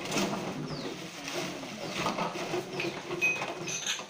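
Empty plastic PET bottles clattering and crinkling as they are tipped out of sacks into the top of a baling press, with the plastic sacks rustling.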